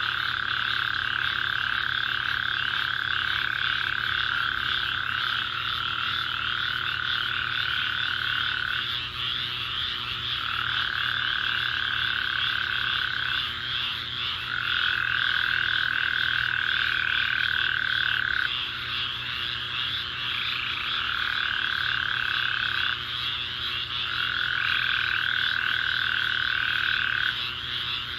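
A dense night chorus of thousands of frogs calling after a rainstorm, a loud cacophony. A long, steady trill of several seconds repeats over the chorus with short gaps between.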